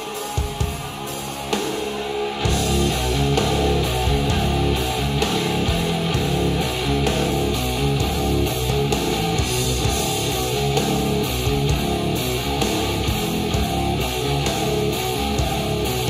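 A rock track with drums and electric guitar played through APS Klasik 2020 and Focal Alpha 50 EVO studio monitor speakers in turn, picked up by microphones in the room. For the first two and a half seconds there are sparse drum hits. Then the full band with heavy bass comes in and plays steadily.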